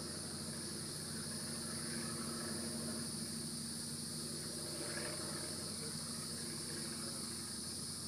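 Steady, unbroken high-pitched drone of insects singing in chorus, over a low steady hum.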